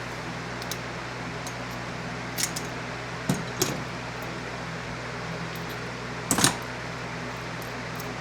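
A few light clinks and knocks as oil cooler hoses and their fittings are handled and worked toward each other, the loudest a quick double knock about six seconds in, over a steady mechanical hum.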